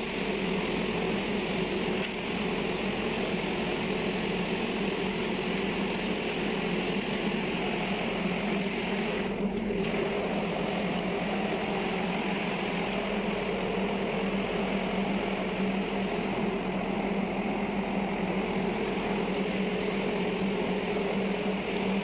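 Steady machinery drone with an even low hum and no change in pitch, typical of a ship's running machinery and ventilation heard on deck.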